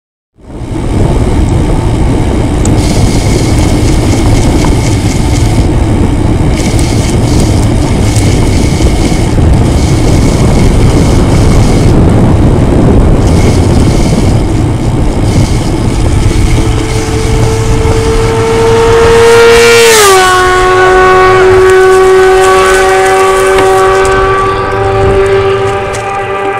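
A motorcycle passing at high speed. Its engine's high, steady whine grows out of loud wind and road rumble on a bicycle's rear-facing camera past the halfway point. It drops sharply in pitch as the motorcycle goes by about three quarters of the way through, and keeps sounding as it pulls away.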